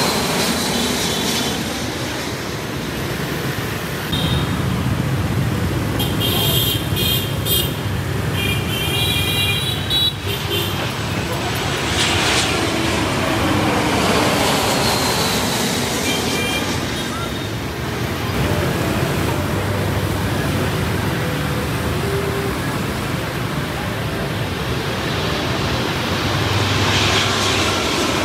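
Jet airliners passing low overhead on landing approach, the engine noise steady and loud with a whine that falls in pitch as each one goes by, over constant road traffic noise.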